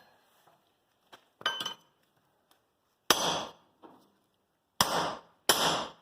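Steel hammer striking a cold chisel driven into a seized joint on a Ford Ranger front axle. A few light taps about a second in, then three heavy blows in the second half, each ringing briefly.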